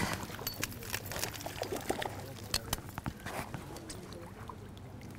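Water splashing as a trout is scooped out of a pond in a landing net, loudest right at the start, then water pouring and dripping off the lifted net with scattered small splashes and taps.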